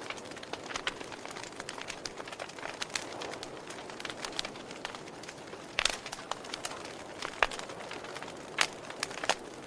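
Wood fire burning with a steady soft hiss and irregular sharp crackles and pops, the loudest about six seconds in.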